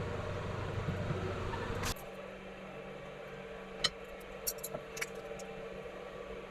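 Steady electrical hum with a low rumble that cuts off suddenly about two seconds in, then a few light clicks.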